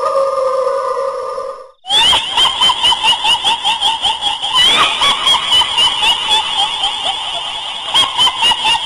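Kuntilanak ghost-voice sound effect: a held high wail that dips slightly in pitch and breaks off, then after a short gap a long, shrill, rapid cackle of quick repeated chirps.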